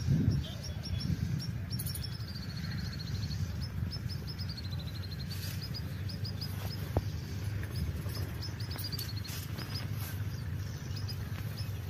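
Small birds chirping: repeated short high calls with a few quick descending trills, over a steady low rumble.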